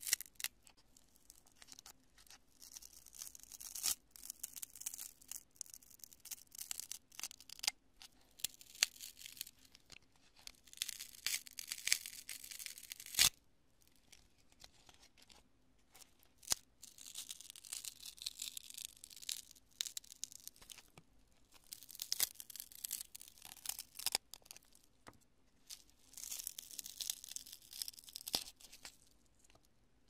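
Fingers crushing and tearing apart pieces of cured construction foam, a crunchy crackle like cotton candy or meringue. It comes in several bursts a few seconds long with sharp snaps among them, the loudest snap about thirteen seconds in, and a short lull after it.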